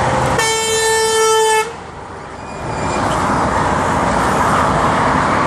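A truck's horn sounds one blast of a little over a second, a single steady tone, over continuous motorway traffic noise from passing trucks and cars.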